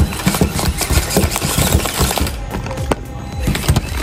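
The square, magnet-lined wheels of a mini RC monster truck clatter against a metal surface as the truck tries to climb it. They make quick, irregular clinks and knocks. Background music plays underneath.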